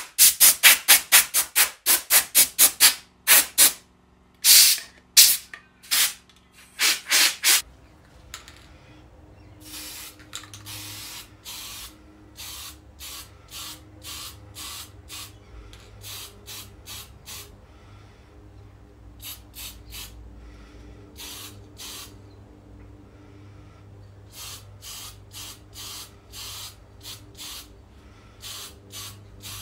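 Compressed-air blow gun fired in a quick series of short, loud blasts at a masked chainsaw part to clear lint before painting, stopping about seven and a half seconds in. After that, a softer string of short hissing bursts over a low hum.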